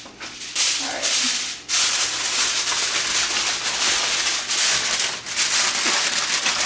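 Aluminium foil crinkling and rustling as a sheet is folded and pressed around a whole fish, with one short lull about a second and a half in.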